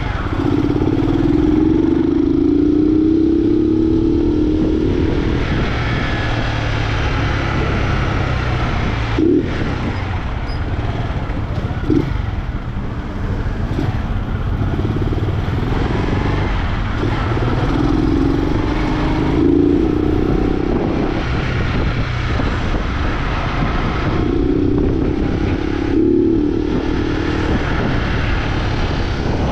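A carburetted single-cylinder Honda Fan 125 engine running with its air filter removed, revved up repeatedly under way. Its pitch climbs several times with short dips between, as it is taken up through the gears.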